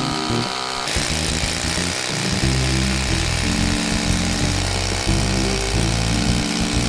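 Background music over a mains hammer drill boring into a brick wall, drilling the hole for a Rawlbolt anchor; the drill starts about a second in and runs on steadily.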